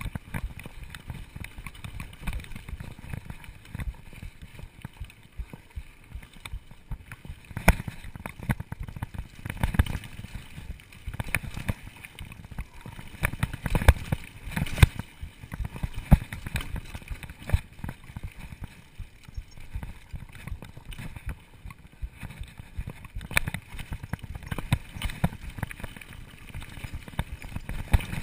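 Mountain bike being ridden over a dirt singletrack: a continuous low rumble of the tyres on the trail, broken by frequent sharp knocks and rattles as the bike jolts over bumps.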